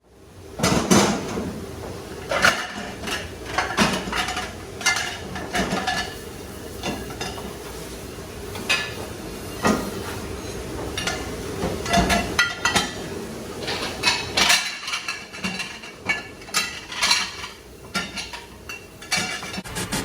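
Dishes, pots and cutlery clanking and clattering irregularly as they are handled at a restaurant dish station, some knocks ringing briefly, over steady background noise.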